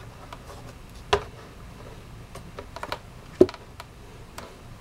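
Irregular small plastic clicks and taps from the action camera's case and mounting parts being handled and fitted, with two louder knocks, one about a second in and one about three and a half seconds in.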